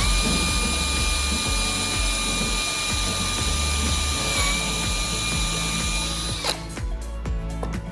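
Small electric power tool running with a steady high motor whine, which dips briefly once and then winds down and stops about six and a half seconds in. Background music plays underneath and carries on alone after the tool stops.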